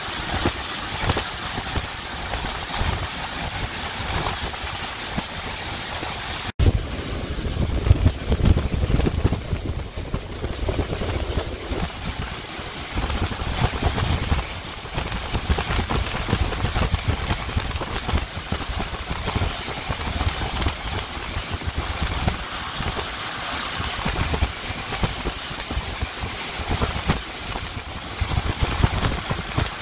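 Hurricane-force eyewall winds howling in gusts, with heavy wind buffeting on the microphone. The sound cuts out for an instant about six and a half seconds in, and after that the low rumble of the gusts is heavier.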